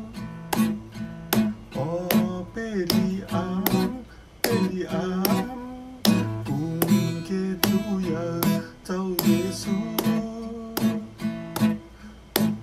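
Acoustic guitar strumming chords in a steady rhythm, with a melody line gliding above it in places: instrumental worship music.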